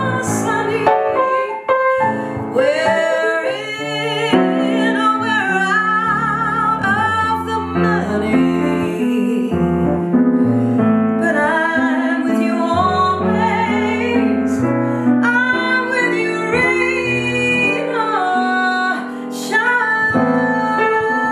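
A woman singing a jazz ballad with solo piano accompaniment, her held notes wavering with vibrato over the piano's chords.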